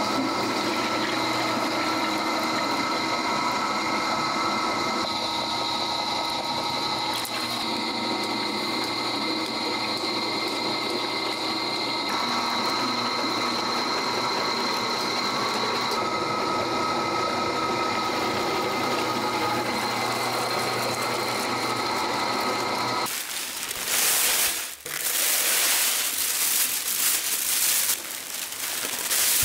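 An electric motor running steadily with a constant whine, cutting off abruptly about 23 seconds in; rushing water, like a tap running, follows.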